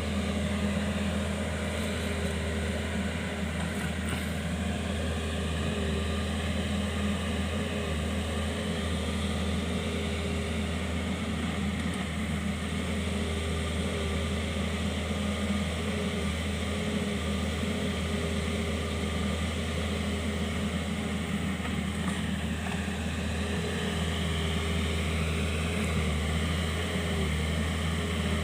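Kobelco SK 50 P mini excavator running steadily, its diesel engine humming, with a higher whine that rises and falls gently as it works.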